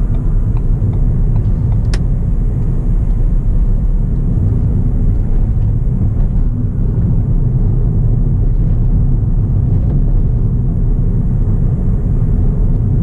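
Steady low rumble of engine and road noise inside the cabin of a moving Ford New Fiesta, with a single sharp click about two seconds in.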